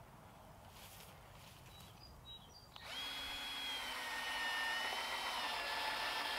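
Cordless drill driving a screw up through the wooden stand into the bottom of a beehive box: a steady motor whine that starts about three seconds in, holds for about four seconds, then begins to wind down in pitch at the end as the screw seats.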